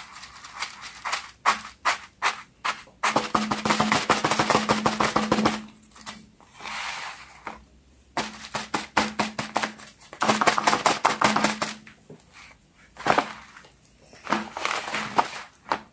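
Fidget toys being handled on a tabletop: bursts of rapid, sharp clicking and tapping. The longest runs come about three seconds in and again about ten seconds in, with scattered single clicks between.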